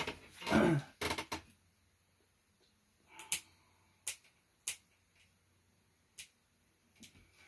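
Handling noise: a rustle in the first second or so, then a handful of separate sharp clicks and taps, about six, with quiet between them.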